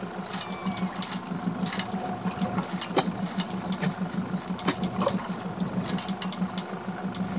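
Small boat's outboard engine idling steadily with a low, fast-pulsing hum, and a few scattered clicks and knocks over it.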